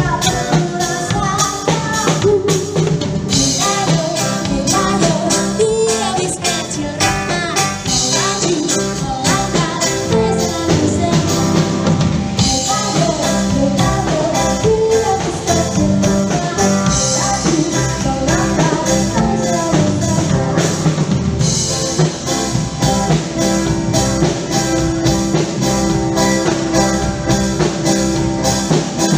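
Background music: a song with singing over a steady drum beat.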